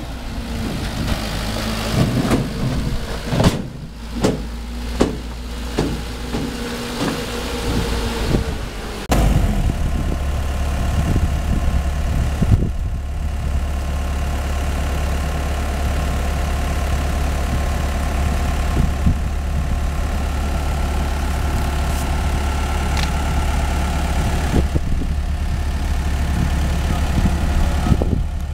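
Truck engine running with a string of sharp knocks. About nine seconds in it switches abruptly to the steady low running of a Komatsu PC78UU mini excavator's diesel engine, which carries on unchanged.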